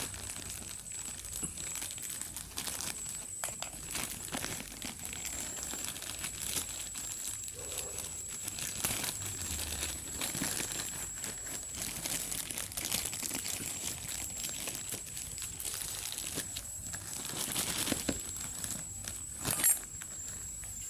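Packaging wrappers being crinkled, handled and pulled off a new clock radio, an uneven run of crackles and rustles with one louder sharp crackle near the end.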